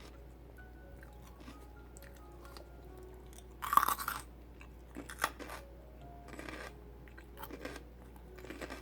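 Crisp loud crunch of a bite into raw celery about four seconds in, a sharp snap soon after, then softer crunching as it is chewed.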